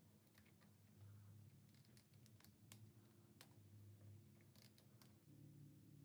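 Near silence: faint, irregular clicks and crinkles from hands working a one-handed bar clamp and a sheet of plastic film.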